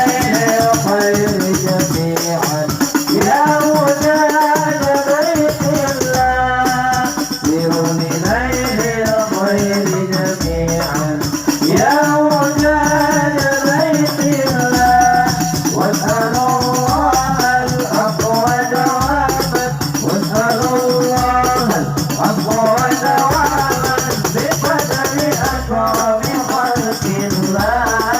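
Hadroh ensemble playing: dense, fast hand percussion under a melody line that bends up and down in pitch, with a deep drum beat coming in about six seconds in and keeping time at roughly one stroke a second.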